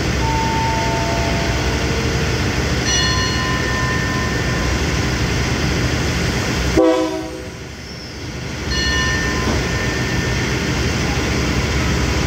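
A stationary diesel passenger train running steadily at the platform, a continuous engine rumble with a few brief tones over it. About seven seconds in there is a short loud sound, after which the rumble dips for about two seconds before coming back.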